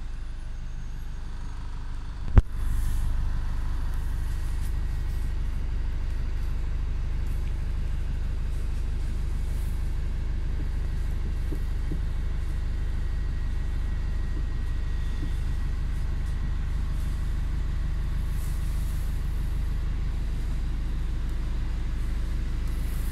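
Steady low rumble of a moving road vehicle heard from inside the cabin, with one sharp knock about two seconds in.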